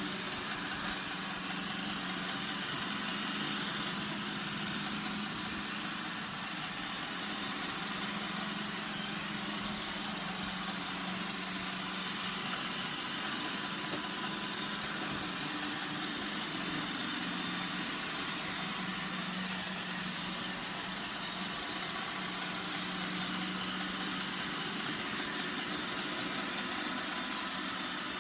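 Roomba 960 robot vacuum running, a steady hum with an even hiss over it.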